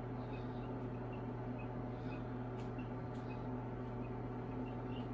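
Baby chicks peeping faintly: short high peeps repeating every half second or so over a steady low hum.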